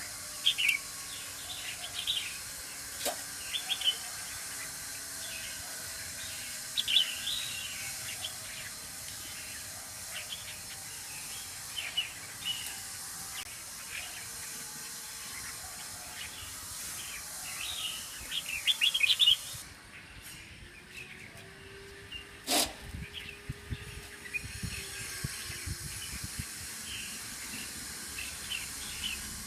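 A flock of caged red-whiskered bulbuls chirping and calling, many short high calls overlapping throughout, over a steady hiss that drops away about two-thirds of the way through. A single sharp knock is heard shortly after.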